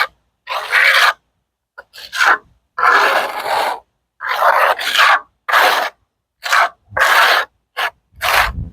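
Steel trowel scraping and pushing thick blacktop patch compound into cracks in asphalt, in about eight short strokes with brief pauses between them.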